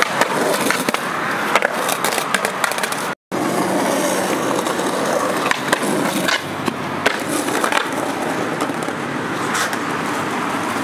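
Skateboard rolling over rough concrete: a steady gritty wheel rumble, broken by several sharp clacks of the board popping and landing. The sound cuts out for a moment about three seconds in.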